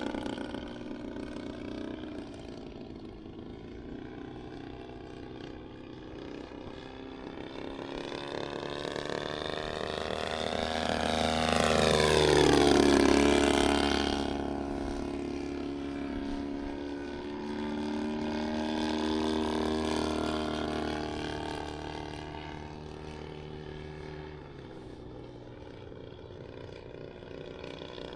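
Desert Aircraft DA-120 twin-cylinder two-stroke gas engine of a large RC aerobatic plane in flight. It grows louder to a peak about halfway through, where the note drops sharply in pitch as the plane passes. It then fades, swells briefly again and fades.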